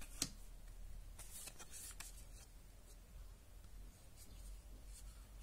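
Faint rustles and a few light ticks of Pokémon trading cards being handled and slid between the hands.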